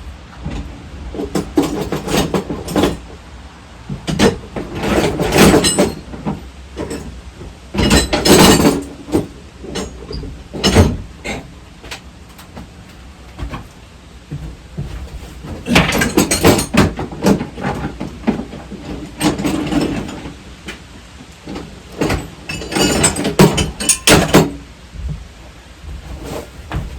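Hand tools and metal ATV rear-end parts being worked: repeated clanks, knocks and rattling clicks in bunches of a second or two, with quieter pauses between.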